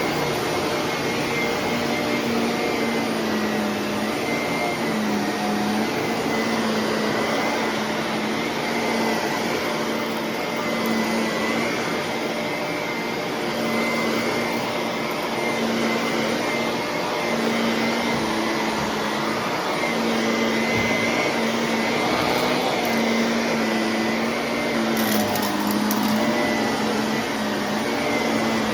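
Shark vacuum cleaner running steadily, a continuous motor hum and whine that waver slightly in pitch.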